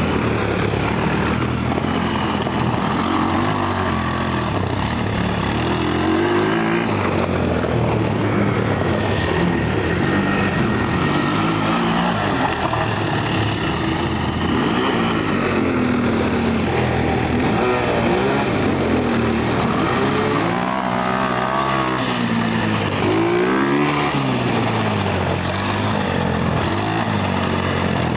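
ATV quad bike engine running under riding load, its pitch rising and falling again and again as the throttle is opened and eased off.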